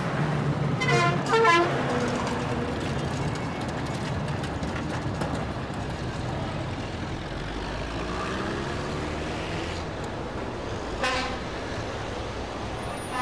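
Bus terminal traffic: bus engines running, with short vehicle-horn toots, one about eleven seconds in, and an engine rising in pitch around eight seconds in.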